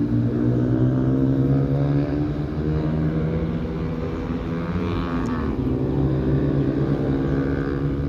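A small engine running steadily, its pitch sagging slightly about halfway through and rising again.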